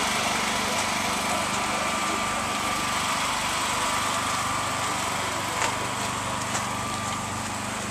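A small engine running steadily at a constant low hum, with two sharp clicks about a second apart roughly two thirds of the way through.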